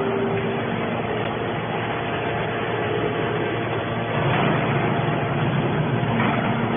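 Hydraulic metal scrap baler running: a steady mechanical drone from its motor and hydraulic pump, swelling briefly about four seconds in and again near the end.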